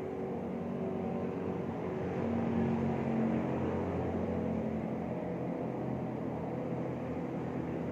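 Steady low mechanical hum with several engine-like tones, swelling slightly about two to three seconds in.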